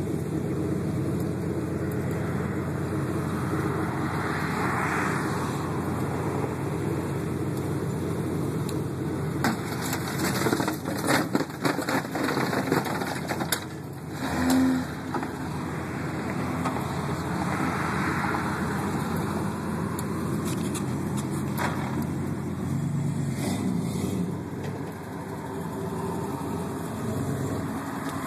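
Off-road vehicle engine running steadily, swelling twice, with a burst of sharp knocks and clatter about halfway through.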